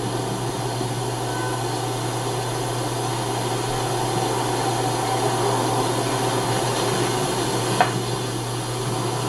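Steady background hiss with a constant low hum, and one short click about eight seconds in.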